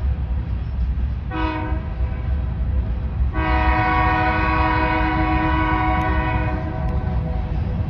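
Norfolk Southern grain train's diesel locomotive sounding its multi-tone horn: a short blast about a second and a half in, then a long blast from about three to six and a half seconds. Underneath is the steady low rumble of the passing train.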